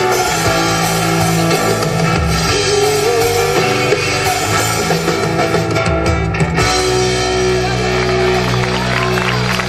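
Instrumental close of a live folk song, with guitar playing. About two-thirds of the way through, the band settles onto a long held chord.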